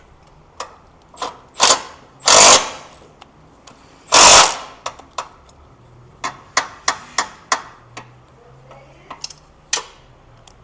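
Power tool running nuts down onto studs in short bursts: two longer bursts of about half a second in the first few seconds, then a string of brief blips and clicks as the nuts are snugged.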